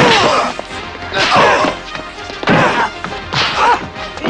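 Fistfight sound effects: four heavy punch and body-slam hits, about a second apart, over background music.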